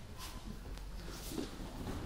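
Judoka grappling on tatami mats: soft scuffling of feet, bodies and cloth jackets, with a couple of light knocks.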